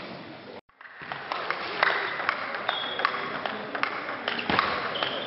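Table tennis rally: the ball clicks sharply off bats and table several times a second over the steady noise and chatter of a busy sports hall.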